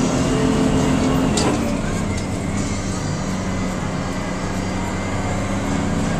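Crown school bus engine running, heard from inside the cab while the bus is driven in gear. There is a short knock about a second and a half in, after which the engine note drops, as the driver works the manual gear lever.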